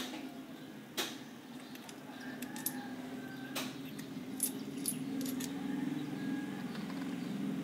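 Small metal parts of a spinning reel's drag and spool assembly clinking and tapping as they are handled and taken apart: a few sharp clicks, the first right at the start, one about a second in and one about three and a half seconds in, with lighter high ticks in between.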